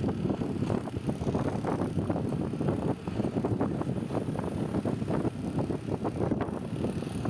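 Heavy diesel earthmoving machine, a backhoe loader, running with a steady low rumble and constant rattling clatter.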